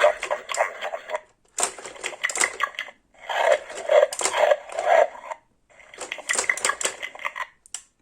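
Goliath Hipo Bob (Burping Bobby) toy hippo chewing as its crank is turned. There are four bursts of rapid plastic clicking and rattling, each a second or two long, with short pauses between.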